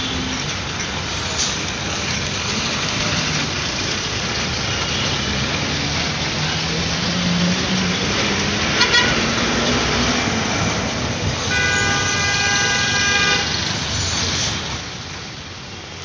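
Busy city street traffic: a steady roar of road noise and engines, with a short horn toot a little past halfway and a longer, held horn blast later on.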